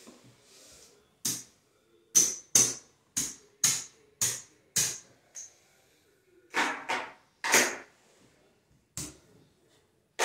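Casino-style poker chips clacking sharply, about a dozen separate clicks, as the bets are picked up off a craps layout and set into the chip rack. This is the table being cleared of losing bets after a seven-out.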